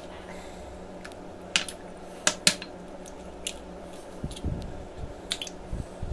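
Eggs being cracked one at a time into a small glass bowl: a few sharp taps and clicks of eggshell and glass, most of them between one and a half and two and a half seconds in, then some soft thuds around four seconds in.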